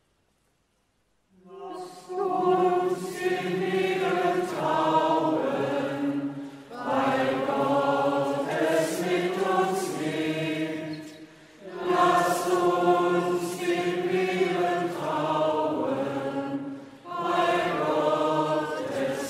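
Choir singing a slow chanted response to the intercessions in four long phrases with short breaks between them, beginning about a second in.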